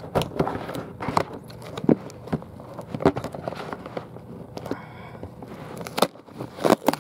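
Cardboard shipping box being opened by hand: a string of scrapes, rustles and short knocks of cardboard and packing tape, with a brief squeak about five seconds in.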